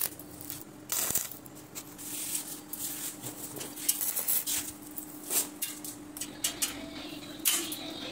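Welding joints on a stainless-steel square-tube grill frame: a steady low hum with irregular crackles and light metallic clicks.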